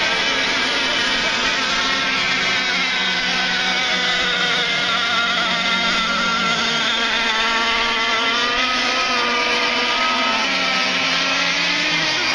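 Several radio-controlled racing boats running at speed on the water, their small engines giving overlapping tones that drift up and down in pitch as the boats go around the course.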